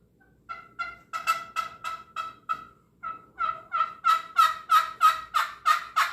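Homemade lathe-turned wooden turkey call being played: two quick runs of short, sharp turkey-like notes, about three a second, with a brief break between them. The second run is louder than the first. The call is being tried out just after it was finished on the lathe.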